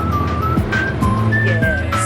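Background music: a high, single-note melody stepping between pitches over sustained bass notes and a steady beat.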